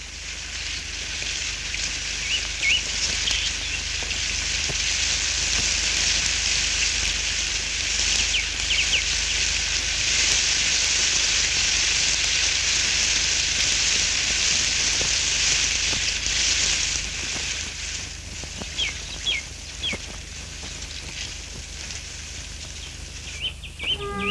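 Old film soundtrack carrying a steady high hiss, like rain or insects in the trees, that swells through the middle and eases off near the end. Short bird chirps come over it now and then, with a faint low hum underneath.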